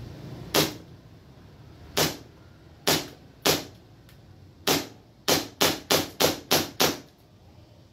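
WE Hi-Capa 3.8 gas blowback airsoft pistol, fitted with a mock silencer, fired eleven times. Five shots are spaced a second or so apart, then six follow in a quick string of about three a second, emptying the magazine. The silencer does not cut the noise of the blowback.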